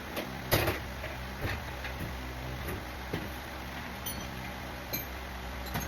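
Scattered light clicks and clinks of tools and parts being handled and put away, the loudest about half a second in, over a steady low hum.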